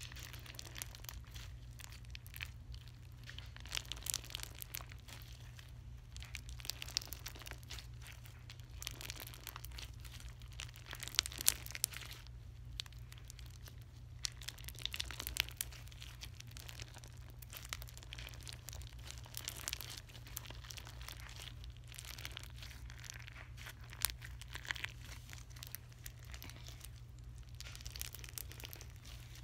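Bead-filled slime being squeezed and kneaded in the hands, giving an irregular crackling and popping as the beads squish together.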